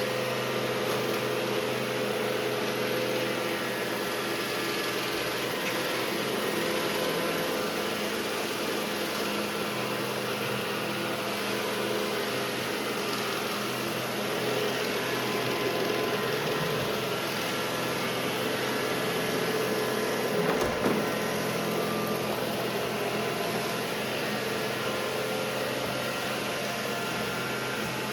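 Two robot vacuums, an iRobot Roomba j7 and an Ecovacs Deebot 920, running: a steady motor and brush hum with a whir on top. A single knock about two-thirds of the way through.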